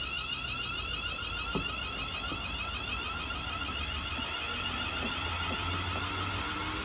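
ScotRail Class 380 electric multiple unit moving off along the platform. Its traction equipment gives a steady, high, slightly warbling whine of several tones together, over a low rumble from the wheels on the rails, with a single click about a second and a half in.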